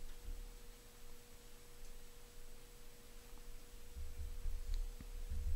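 Faint steady hum: one held tone with a fainter lower tone beneath it, over a low rumble that grows louder in the second half.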